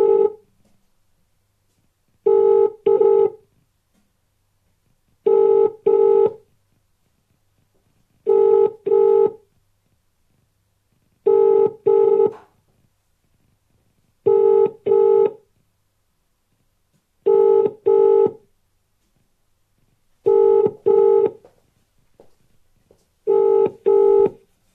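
British telephone ringing tone on an outgoing call: the double ring, two short tones close together, repeating every three seconds about eight times while the call goes unanswered.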